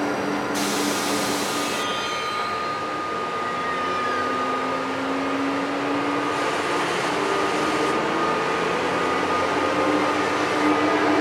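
ÖBB Siemens Taurus electric locomotive and its train running along the station track, with a steady electric hum. A tone in the hum slowly rises partway through, and there is a short hiss about a second in. The noise grows louder as the locomotive comes closer.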